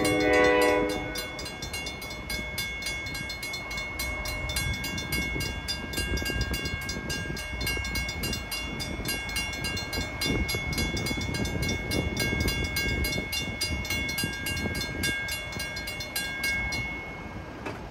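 The tail of a train horn fades out about a second in. Then the railroad crossing bell rings steadily over the low rumble of a passing train. The bell stops near the end as the train clears the crossing.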